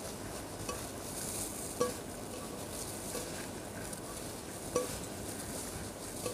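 A hand in a plastic glove mixing moist shredded chicken and vegetable filling in a glass bowl: a steady rustle and squish of glove and filling, with a few light knocks against the bowl.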